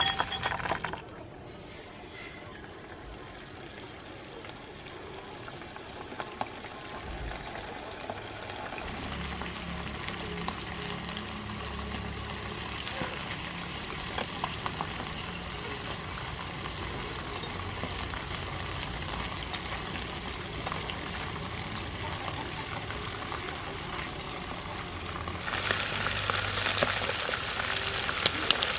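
Noodle-wrapped shrimp deep-frying in hot soybean oil in a wok, a steady sizzle with small crackles. The sizzle is quieter through most of the stretch and grows much louder near the end.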